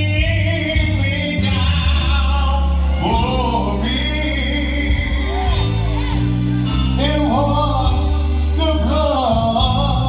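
Church choir singing gospel music over a deep, sustained bass accompaniment. From about three seconds in, a lead voice with wide vibrato rises and falls above the backing.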